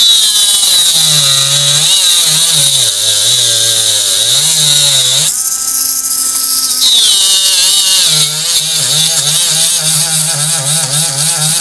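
Small handheld rotary tool (mini drill) spinning a brass wire wheel against a circuit board, scrubbing off burnt carbon residue. The motor's whine wavers up and down in pitch as the wheel is pressed on and eased off, and there is a hiss of abrasion.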